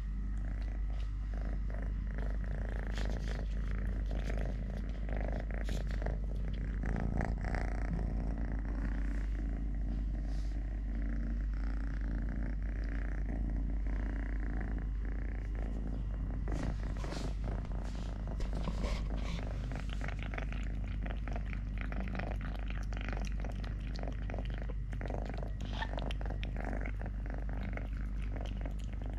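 Kitten purring steadily close to the microphone, with scattered light clicks and crackles.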